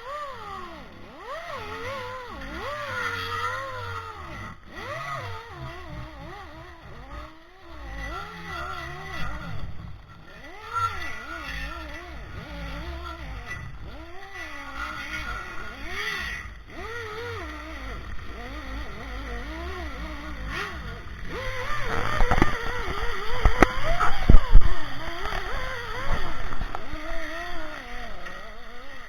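An engine running with its pitch rising and falling as the revs change, and a louder stretch with knocks and rattles about three quarters of the way through.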